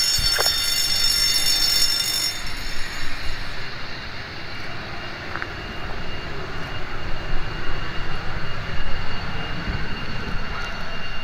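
F-16 fighter's jet engine running at low power as the jet rolls out along the runway: a steady high-pitched whine over a rumble. The highest whine tones fade about two seconds in.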